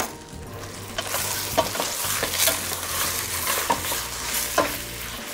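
Chicken pieces browning in hot oil in a stainless steel pot, sizzling steadily from about a second in. A long-handled spoon stirs them, knocking sharply against the pot several times.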